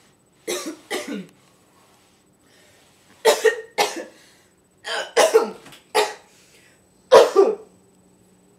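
Coughing in short bouts, about eight coughs in all: two near the start, a pair and then three more in the middle, and one longer cough near the end.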